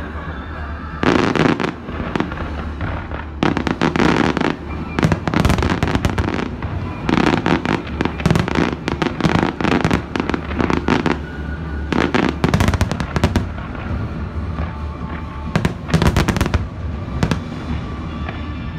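Fireworks display: volleys of bangs and crackle from bursting shells come in waves every second or two, with music playing underneath.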